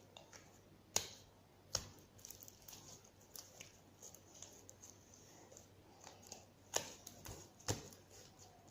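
Hands working homemade glue slime: soft sticky rustling with four sharp clicks, two in the first two seconds and two near the end.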